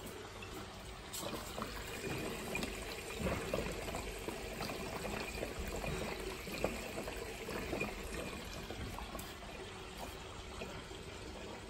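Aquarium filter water trickling and splashing into the tank, with many small pops and a steady low hum underneath.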